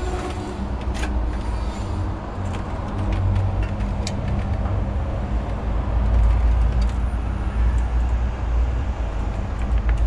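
Steady low rumble like distant traffic, with scattered sharp clicks and light knocks.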